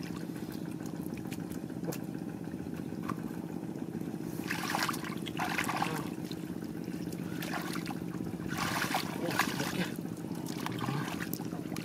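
A tractor engine running steadily, with water sloshing and splashing in shallow muddy water as someone wades and reaches in with his hands, in a few bursts about halfway through and again near the end.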